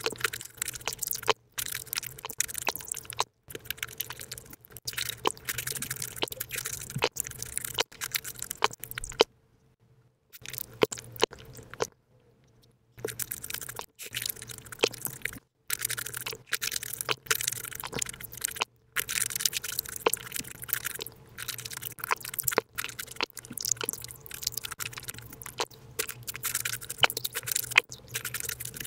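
Close-miked ASMR chewing and biting of fresh fruit, sped up about fivefold into a fast chatter of wet crunches and mouth clicks. There are two brief pauses about a third of the way through.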